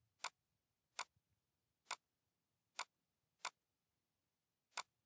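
Six computer mouse button clicks, spaced unevenly, roughly a second apart.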